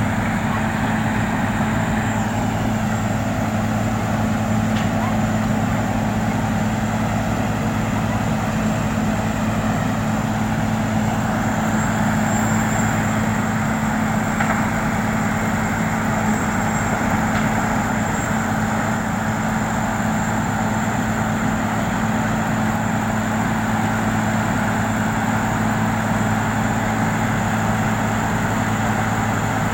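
An engine running steadily at a constant speed, with a low, even hum.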